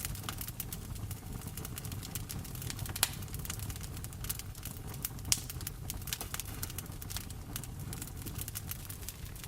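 Wood fire crackling in a fireplace, with many small irregular pops and two louder snaps, about 3 and 5 seconds in, over a steady low rumble of rain.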